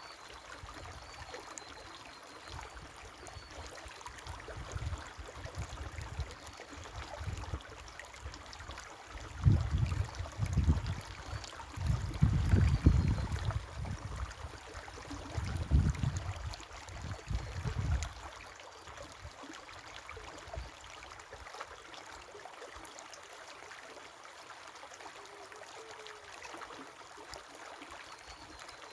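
River water flowing in a steady rush, with faint bird chirps. From about a third of the way in, low rumbling buffets come and go for several seconds and are the loudest part.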